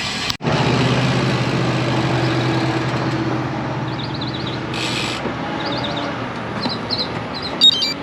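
A large engine's low, steady hum that fades over several seconds, over constant wind and road noise. Birds chirp from about halfway through, and there is a sharp click near the end.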